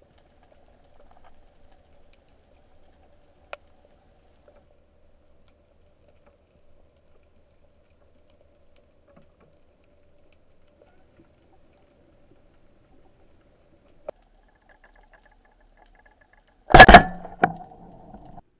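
Speargun fired underwater: a sudden loud crack near the end, a second crack about half a second later, and a short rattling tail as the shaft flies out on its line. Before it, only a few faint ticks.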